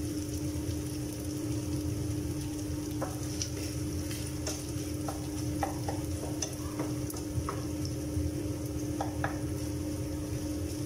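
Minced pork sizzling as it fries in a nonstick pan. From about three seconds in, a wooden spatula stirs it, clicking and scraping against the pan now and then. A steady low hum runs underneath.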